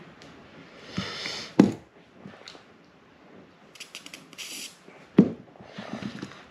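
Handling noise from servicing a baitcasting reel over newspaper: rustling and two sharp knocks as the reel and parts are picked up and set down, and a short hiss about four seconds in.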